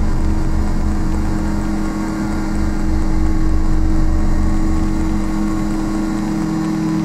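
Electronic synth drone from a Maximal Drone Box run through Kaoss Pad effects: two low tones held steady over a noisy haze. A low throb pulses about three times a second and fades out about five seconds in.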